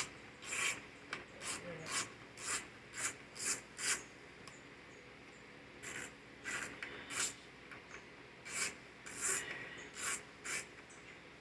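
Short scraping or rasping strokes, about two a second, in two runs with a pause of a couple of seconds between.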